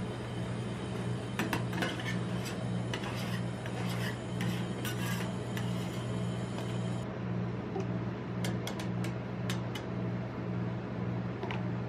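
Metal spatula scraping and tapping on the steel cold plate of a rolled-ice-cream machine, a run of scrapes in the first half, then a few sharp clicks of metal tongs later on. A steady low hum runs underneath.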